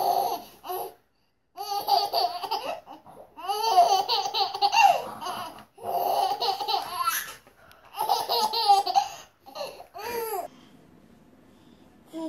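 Baby laughing hard in about six bursts with short pauses between, stopping about ten and a half seconds in.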